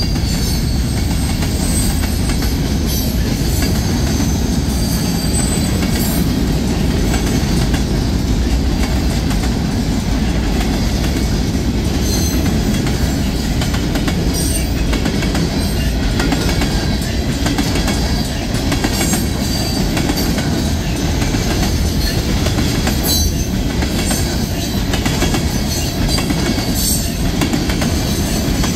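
Freight cars (covered hoppers and tank cars) rolling steadily past: a continuous heavy rumble of steel wheels on rail, with irregular clicking as the wheels cross rail joints and a few thin high squeals from the wheels.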